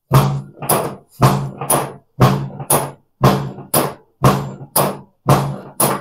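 A steady rhythm of sharp knocks in pairs, about half a second apart, with a new pair each second, twelve knocks in all.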